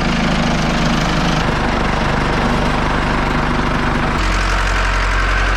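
Engine running steadily just after starting, its note shifting abruptly twice, about a second and a half in and again near the end.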